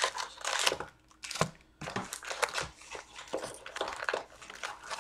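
Cardboard box of Upper Deck Series 2 hockey card packs being torn open and the wrapped packs pulled out, with irregular crinkling and tearing of cardboard and pack wrappers.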